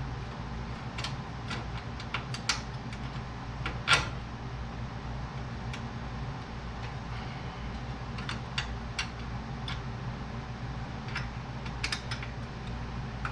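Scattered metal clicks and taps of a hood latch and its bolts being handled and fitted by hand, the loudest about four seconds in, over a steady low hum.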